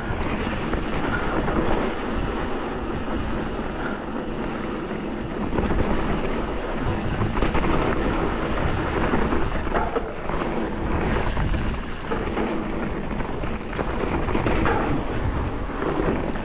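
Hardtail mountain bike riding fast down a dirt trail: wind rushing over the camera microphone, with the knobby tyres rolling on loose dirt and the bike rattling and clattering over the bumps.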